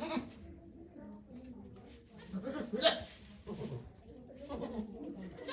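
Goat bleating in a few short calls, the loudest about three seconds in.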